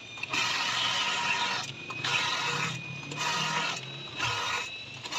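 Cylinder boring machine working inside a Honda CG 125 cylinder bore: about five repeated bursts of harsh grinding noise with short gaps, over a faint steady high motor whine.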